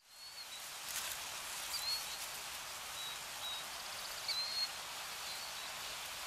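Steady hissing nature ambience fading in from silence, with a few short, high bird chirps over it.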